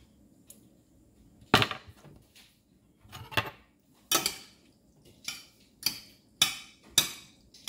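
Metal kitchen utensils (a knife and a spoon) clinking and knocking against a plate and a ceramic baking dish as cheese is cut and added to the dish. About seven sharp clinks come at uneven gaps, most of them in the second half.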